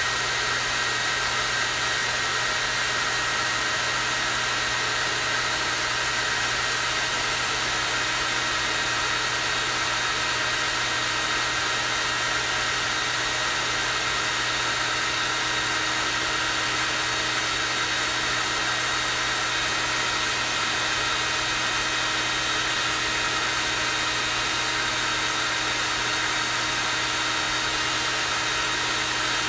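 Hair dryer running steadily on its strong, high-speed setting: an even rush of air over a low motor hum, with a few fixed whining tones and no change in speed.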